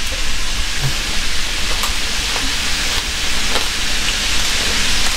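Hot grease sizzling steadily in a frying pan as frog legs deep-fry, with a few faint ticks.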